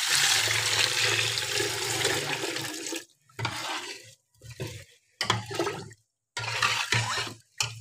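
Water pouring steadily from a jug into a steel pressure cooker over dal and spices for about three seconds. Then a metal spoon stirs through the water in about five short sloshing strokes.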